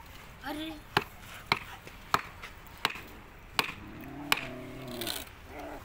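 Sharp chopping strikes from a hand-held blade, six of them about two-thirds of a second apart.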